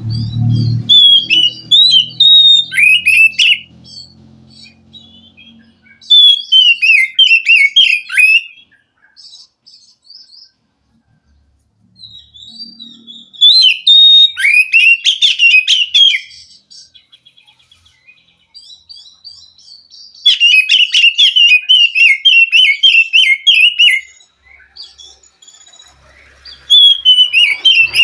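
Oriental magpie-robin singing in five separate phrases of a few seconds each: rapid runs of sliding whistled notes with pauses between them.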